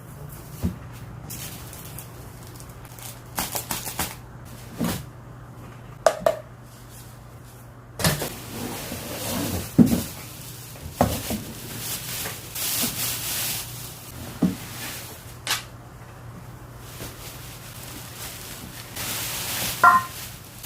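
Packaging and parts being handled during an unboxing: scattered knocks, taps and rustling, with a steady low hum underneath.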